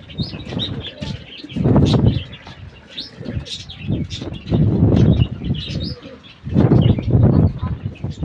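Domestic pigeons cooing and flapping their wings, with short high chirps throughout and a few louder rushes of flapping about 2, 5 and 7 seconds in.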